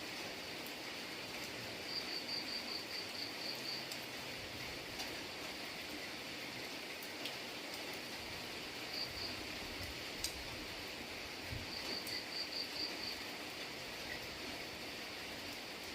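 Steady rain falling, an even hiss. Three times a high chirping comes through, each a short train of quick pulses, and a few single drip-like ticks.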